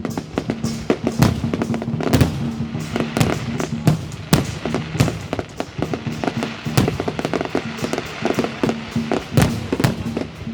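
Fireworks going off in a rapid, irregular series of bangs, many close together, with music playing underneath.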